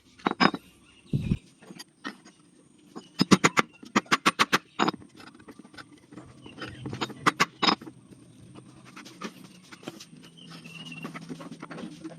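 Homemade hand-pumped airsoft Uzi firing: sharp cracks in quick strings, the longest a rapid run of about eight shots a few seconds in, with a few more shots later.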